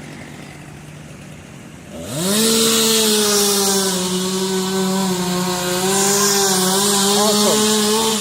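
Gas chainsaw idling, then throttled up about two seconds in and held at high revs for about six seconds while cutting a storm-felled tree, the pitch sagging slightly as the chain bites, before dropping back at the end.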